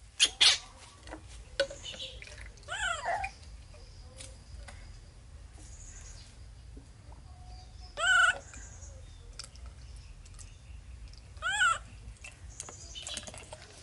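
Baby monkey giving short, high, wavering squeaks three times, a few seconds apart. Two sharp clicks sound just after the start.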